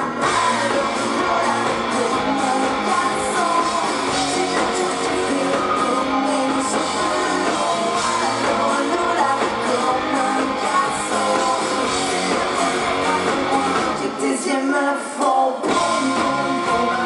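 Live pop-rock band playing, with a female lead vocal over electric guitars and drums. About fourteen seconds in, the low end of the band drops out for about a second before the full band comes back in.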